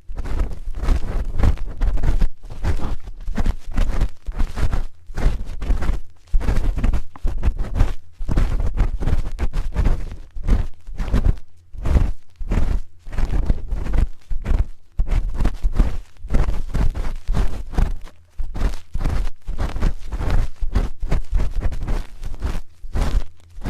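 A spoon scraping and rubbing for ASMR ear cleaning: a fast, irregular run of close scratches and rubs with a deep thudding undertone and brief gaps between strokes.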